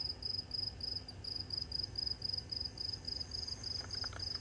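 A cricket chirping in a steady high-pitched pulse, about six chirps a second, over a low background rumble.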